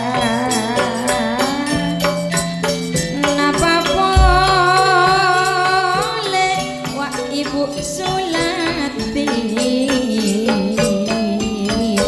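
Javanese gamelan playing a gending: bronze metallophones and drum keep a steady beat while a female singer sings with wide vibrato. A deep gong stroke sounds about four seconds in.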